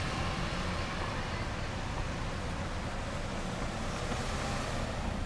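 Car traffic moving through a street intersection: a steady low rumble of engines and tyres, with no horn.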